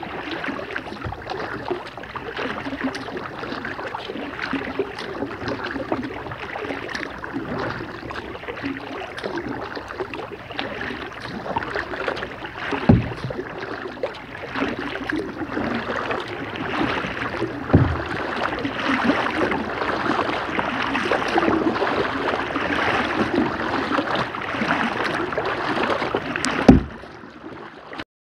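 Kayak paddling on flat water: the paddle blades dip and splash steadily with dripping water, with three sharp thumps along the way.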